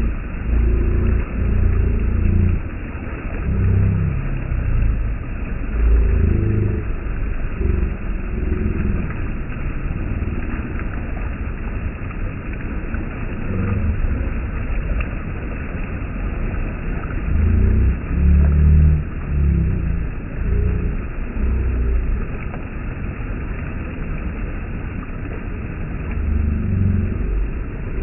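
Water rushing over a small weir in a concrete-walled stream channel. A steady rush with a deep rumble that swells and falls unevenly.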